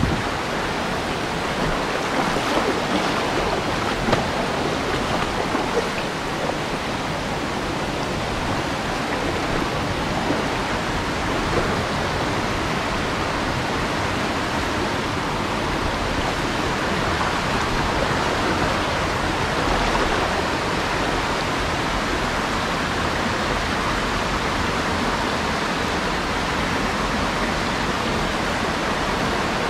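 Mountain stream water rushing over rocks, a steady, even rush throughout, with a couple of brief faint knocks over it in the first dozen seconds.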